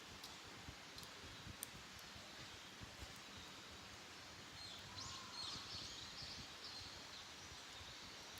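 Wild songbirds singing faintly, with a short run of chirps and trills about five seconds in, over quiet woodland background noise. A few faint clicks come in the first two seconds.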